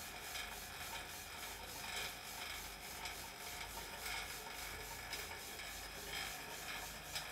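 Dunlop exercise bike being pedalled steadily: the flywheel whirs and the resistance rubs with a faint, even rhythm.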